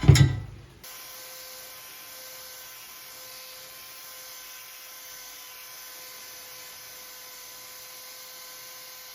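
Steady electrical hum with a hiss, holding a thin high tone, after a brief loud sound that cuts off abruptly under a second in.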